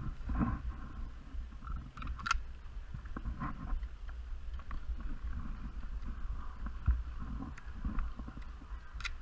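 Low rumbling movement and wind noise on a body-worn action camera's microphone, with irregular thuds, and a couple of sharp cracks, one about two seconds in and one near the end.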